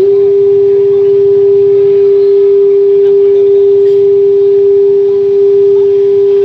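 Sound system rig playing a loud, steady test tone, one pure mid-pitched note held without change.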